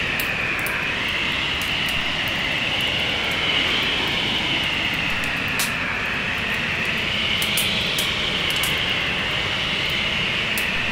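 Wood fire crackling, with sharp crackles scattered irregularly, over a steady rush of storm wind whose whistling pitch drifts slowly up and down.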